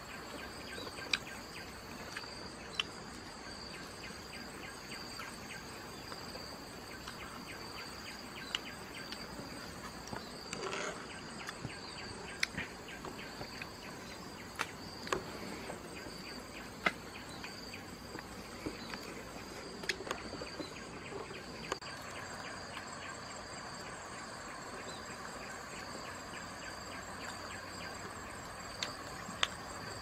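Steady high-pitched trill of insects, with scattered sharp clicks and knocks that come every second or two.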